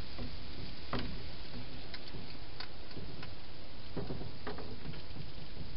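Wild hedgehog eating from a bowl inside a plastic feeding box: scattered small clicks and crunches, about half a dozen, over a steady hiss.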